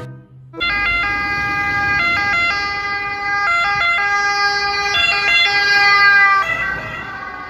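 Ambulance siren sounding in two-tone mode, stepping back and forth between a high and a low pitch. It starts about half a second in and is steady throughout, easing slightly in level near the end.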